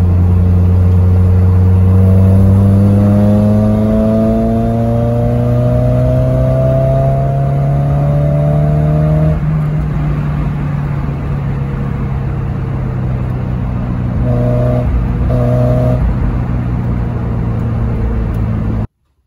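1996 Mazda Miata's 1.8-litre four-cylinder engine heard from inside the cabin on the road, its pitch rising gradually for about nine seconds, then dropping suddenly and holding steady. The sound cuts off abruptly just before the end.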